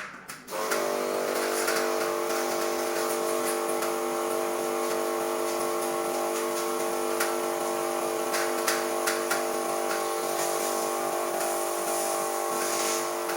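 High-pressure water spray gun's electric pump starting about half a second in and running steadily, a constant motor hum with the noise of the water jet over it.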